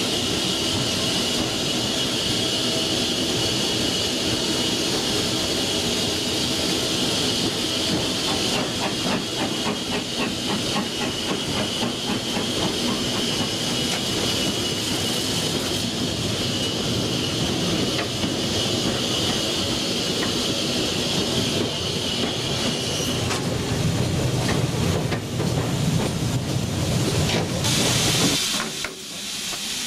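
Slacker pipe hissing as it sprays water over the coal in the tender of a GWR Hall class steam locomotive, over the running clatter and steam noise of the moving engine's footplate. About three-quarters of the way through the hiss gives way to a deeper rumble, and the sound dips briefly near the end.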